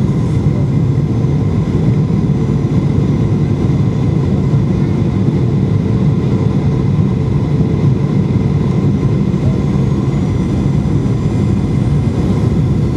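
Steady jet engine and airflow noise inside an airliner's passenger cabin on the landing approach, low and even, with faint steady whining tones above it.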